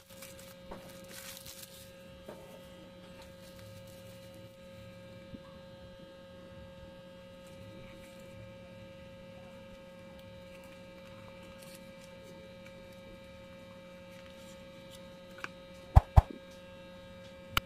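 Steady electrical mains hum with faint handling noises, and two sharp clicks near the end.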